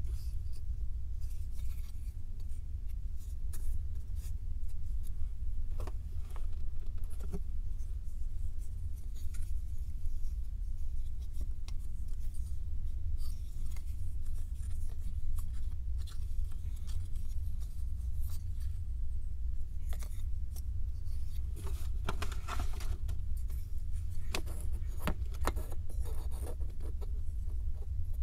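Hands handling and fitting together small 3D puzzle pieces, giving scattered soft clicks, scrapes and rustling that are busiest near the end, over a steady low hum.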